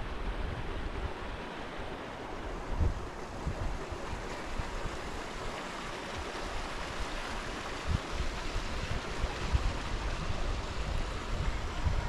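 Steady rush of a flowing creek, with wind buffeting the microphone in short low gusts now and then.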